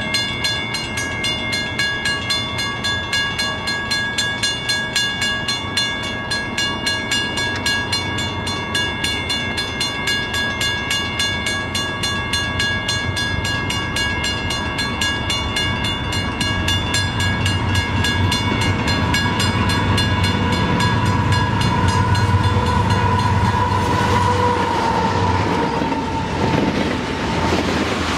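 Grade-crossing bell ringing with a steady, even clang while a CP GE AC4400CW diesel locomotive approaches, its engine rumble growing from about halfway through. The locomotive passes near the end with a slight drop in pitch, followed by the rush and rattle of ethanol tank cars rolling by.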